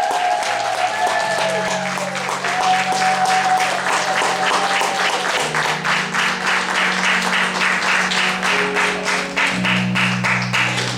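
Theatre pit music for a stage musical: long held low notes under a melody line, with a fast, steady beat of sharp strokes.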